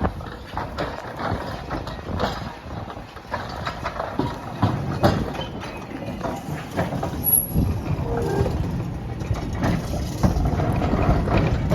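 Heritage electric tram rolling slowly over depot trackwork, its wheels clattering and knocking irregularly over a low rumble.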